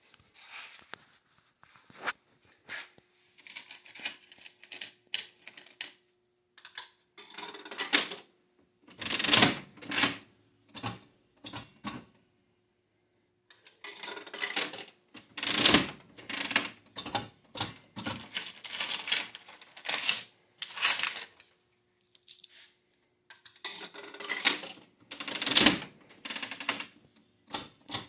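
Bally electromechanical three-reel slot machine being played: its mechanism clicks and clatters in three busy stretches as coins go in and the reels run and stop, with lighter clicking in the first few seconds. A faint steady hum runs underneath.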